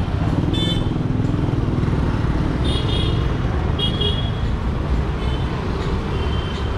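City street traffic: engines of scooters and cars running in a steady low rumble, with several short, high vehicle horn toots, some in quick pairs.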